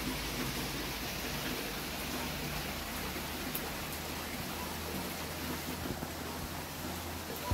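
Steady rain falling: an even, unbroken hiss of rain.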